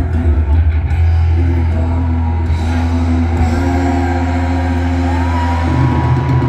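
Live rock band playing through a concert PA, heard from the audience: heavy bass under guitar and vocals, with a high sliding note about five seconds in.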